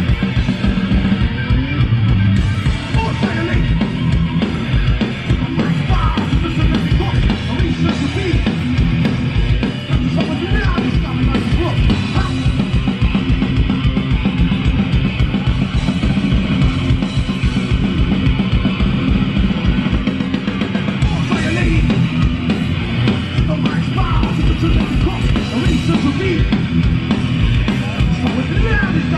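Heavy metal band playing live at full volume: distorted electric guitars over fast, driving drumming on a full drum kit.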